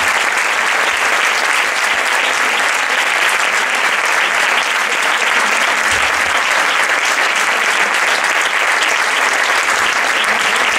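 Audience applauding: steady, sustained clapping from a large hall full of people.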